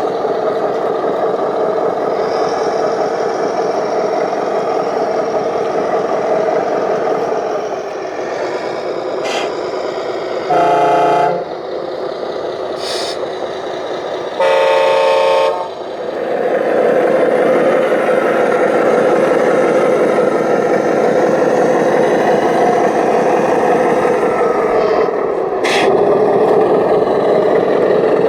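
Radio-controlled model construction machines running steadily with a motor-and-gear drone. A horn sounds twice, first a short blast, then a longer one about four seconds later.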